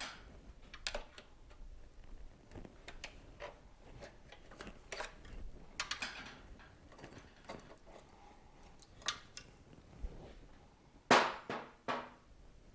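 Irregular metallic clicks and clanks of hand tools and parts being handled during a motorcycle disassembly, with one louder clank about eleven seconds in.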